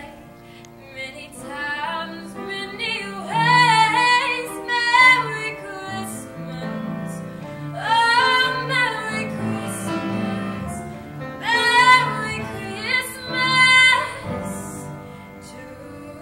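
A young female soloist singing a slow ballad into a microphone, three sustained phrases with vibrato over soft held accompaniment. The voice stops a couple of seconds before the end, leaving only the quiet backing.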